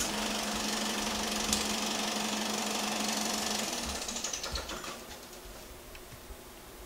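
1950s Philips 35 mm projector mechanism run briefly during film loading. The motor starts suddenly and the mechanism clatters steadily with a hum, then stops about three and a half seconds in and runs down over the next second or so.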